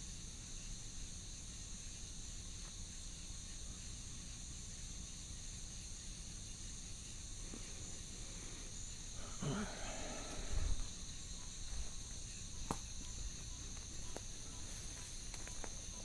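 Steady high-pitched chorus of night insects, unbroken throughout. About ten seconds in there is a short muffled sound, and a single sharp click a little later.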